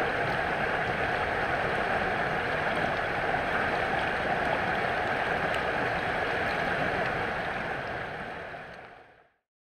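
Creek running high and muddy with storm runoff, rushing and churning over rocks close to the microphone in a steady wash of water noise. It fades away near the end.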